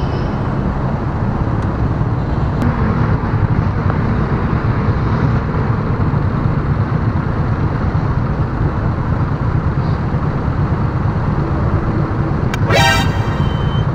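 Steady low rumble of a motorcycle engine and surrounding road traffic while riding slowly through congested traffic. About a second before the end comes a brief, higher-pitched tone.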